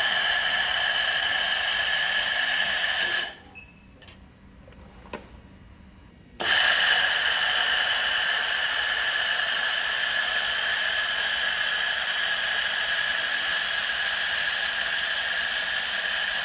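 Handheld laser welder torch firing in seam-cleaning mode at low power with the widest wobble: a steady, high-pitched buzzing hiss. It stops about three seconds in and starts again a little after six seconds.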